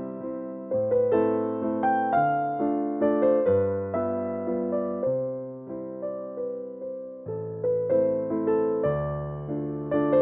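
Background music: a gentle piano piece, notes and chords struck in a steady pulse, each fading away after it is played.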